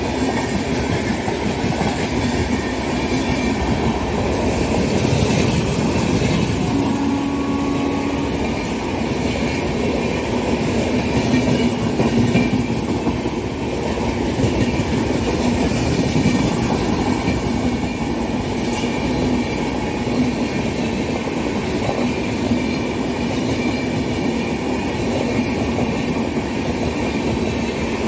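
LHB passenger coaches of an express train passing close by at speed without stopping, their wheels running over the track with a steady loud rumble.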